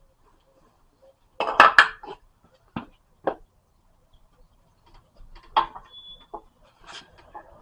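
Metal tools and parts clinking and clanking as they are handled during work on a car's front strut: a quick cluster of loud knocks about a second and a half in, then single knocks every half second to a second, with one brief high ring.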